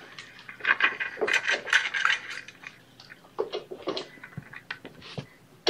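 A kitten scrabbling right at the microphone: bursts of quick scratchy clicks and clattering, then a few scattered taps and two soft thumps near the end.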